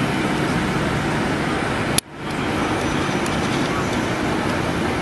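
Steady outdoor street noise: traffic with a murmur of voices. About two seconds in, a sharp click, then the sound briefly drops out and swells back.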